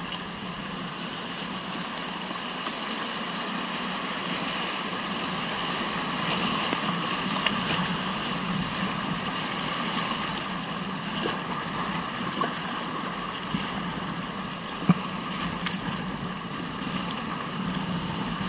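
Whitewater river rushing steadily, a continuous noisy wash that swells a little mid-way, with a few short knocks.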